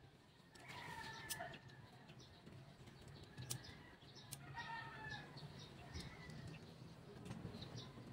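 Sharp snaps and rustling of leafy vine stems being picked by hand, with faint bird chirps several times in between.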